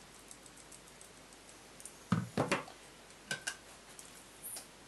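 Knocks and clinks of bowls and a jar being handled on a wooden board. A cluster of sharp knocks comes about two seconds in, then lighter clicks, one with a brief ring, a second or so later.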